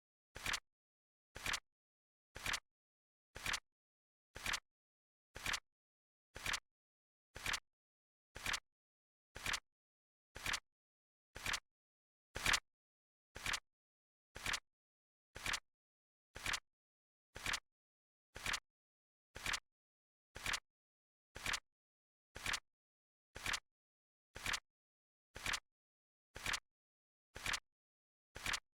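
Flip-clock sound effect: a crisp card-flip click about once a second, evenly spaced, each click a quick double snap, with one a little louder about twelve seconds in.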